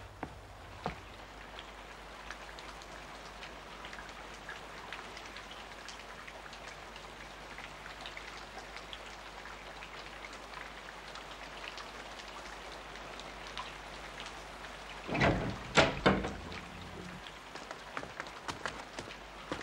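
Steady rain pattering, with many small drop ticks. About fifteen seconds in, a brief burst of louder knocks and thuds stands out over it.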